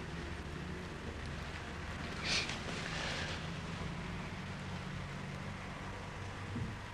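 Quiet room tone on an old video soundtrack: a steady low hum under a constant hiss, with one short breathy noise about two seconds in.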